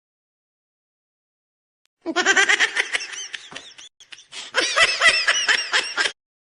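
Silence for about two seconds, then high-pitched laughter in quick, repeated bursts. It comes in two runs of about two seconds each, with a short break between them, and cuts off suddenly.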